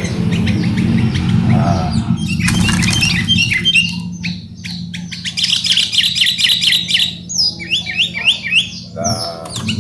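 Caged sooty-headed bulbuls (kutilang) calling: a rapid run of short chirps and whistled notes. A low steady hum sits under the first few seconds.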